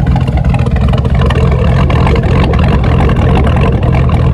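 2013 Chevy Tahoe's V8 idling with a steady, even rumble, running again after a starter replacement cured its no-crank, no-start fault.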